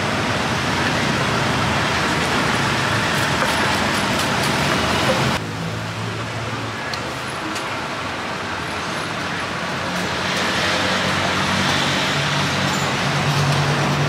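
Steady street traffic noise with a low engine hum. The level drops slightly and suddenly about five seconds in.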